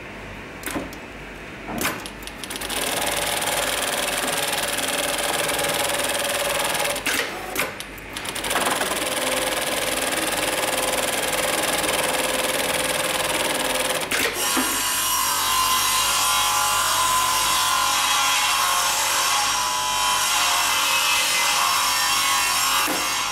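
Hightex MLK500-2516 automatic pattern sewing machine stitching polyester webbing for a fall-arrest harness. A few sharp clicks come first, then the machine runs steadily from about three seconds in, pausing briefly around seven to eight seconds in and changing tone about halfway through.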